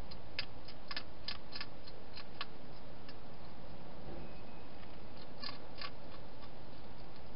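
Wild hedgehog crunching dry food: a run of sharp, crisp clicks over the first two and a half seconds, then two more about five and a half seconds in, over a steady background hiss.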